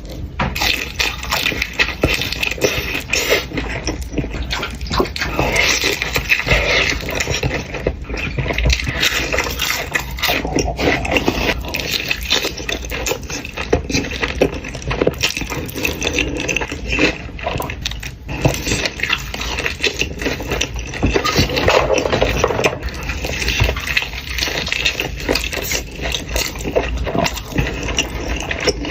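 Close-miked ASMR eating of hot fried chicken and Buldak noodles: steady chewing with many small clicks and mouth smacks.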